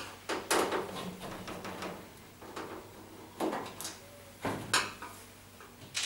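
Scattered clicks, taps and knocks of a screwdriver and hands working on a tumble dryer's sheet-metal front panel as its top screws are undone.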